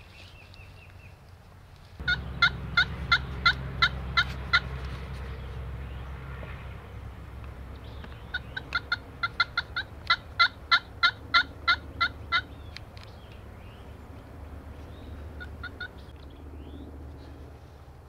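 Turkey yelping: two runs of sharp, evenly spaced notes, about three a second, the first starting about two seconds in and a second, longer run around the middle, with a few fainter notes later. A low rumble sets in with the first run.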